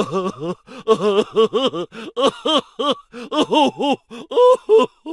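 A comic vocal sound effect: a rapid run of short, pitched yelping cries, about four a second, with a brief pause about three seconds in, cutting off abruptly at the end.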